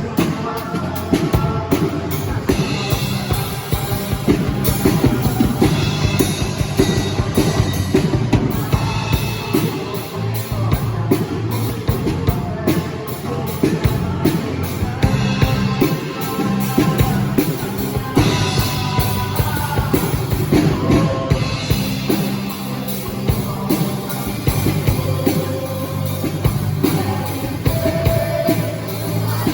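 Band rehearsing a worship song, with a drum kit keeping a steady beat under bass and other instruments.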